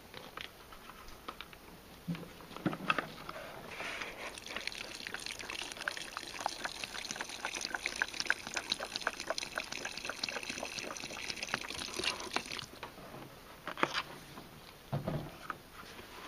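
Water poured from a bottle into a plastic bucket holding a block of soaking sphagnum moss, splashing steadily for about ten seconds and then stopping sharply. A few knocks of handling come just before and after the pour.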